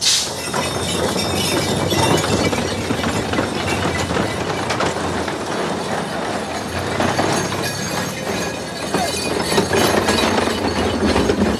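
Busy street clatter from a bullock cart and bicycles passing: a steady, dense rattling and clattering that starts abruptly.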